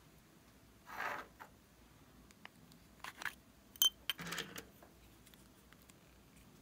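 Small plastic handling sounds: a short rustle, then a few clicks and one sharp click with a brief high ring as a round plastic lip balm container is opened, followed by a short scrape.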